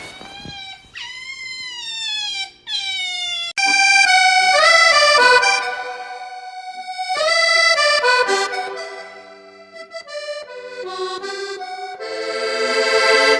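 Accordion music playing a tune in held, changing chords. It opens with a few sliding notes that fall in pitch.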